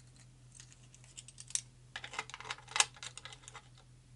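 Light, irregular clicks and taps of small metal lock pins being handled and set down on a pin tray, sparse at first and coming in a quick cluster about two seconds in, the loudest near three seconds.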